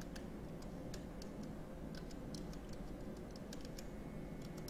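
Computer keyboard being typed on: irregular key clicks, about three or four a second, over a steady low hum.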